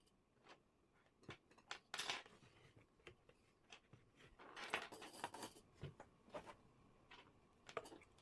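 Faint, irregular clicks, taps and short scrapes of small metal and plastic parts and tools being handled while an electric kettle is worked on, with a longer rattling scrape about two seconds in and another around the middle.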